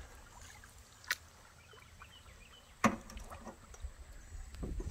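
Paddle knocking against the canoe's hull twice, a sharp knock about a second in and a louder one near three seconds, over a low rumble from paddling on calm water.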